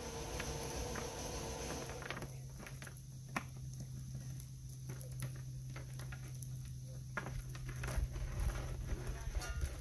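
Loose chainsaw chain clinking and rattling in scattered light clicks as lengths of it are pulled up out of a heaped pile by hand.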